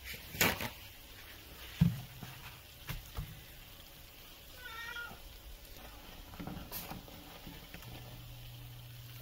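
A house cat meows once, a short call that bends up and down in pitch about halfway through. A few sharp knocks and rustles come from paper towel being laid out and smoothed on the counter, the loudest two in the first two seconds.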